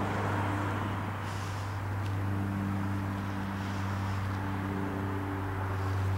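A steady low mechanical hum, like an idling engine or machinery, with a wash of outdoor traffic noise and a few faint ticks.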